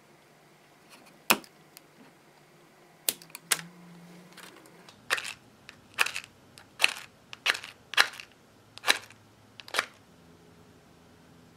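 Scissors snipping candle wicks a few times, then a run of about seven sharp clicks and scrapes, roughly one every second, between about five and ten seconds in.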